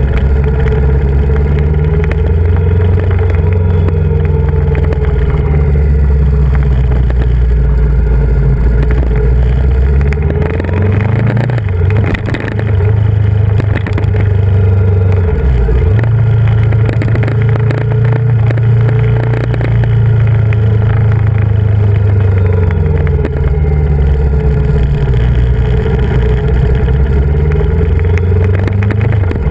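Yamaha VMAX 1700's V4 engine heard from on board, pulling through a run of bends. Its pitch rises and falls with the throttle, and twice near the middle the revs drop deeply and then climb again.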